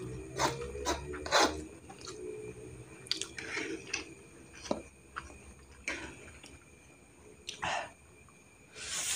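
A person eating fried instant noodles close to the microphone: wet chewing and sticky mouth clicks, with a few noisy slurps of noodles, the loudest near the end.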